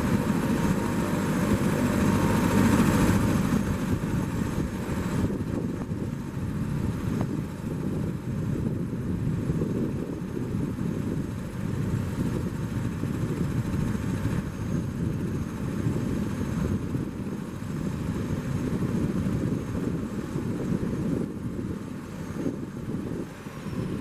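Eurocopter AS 350 B3 helicopter, its single turboshaft engine and rotor running in a steady rumble, louder for the first few seconds and then holding even.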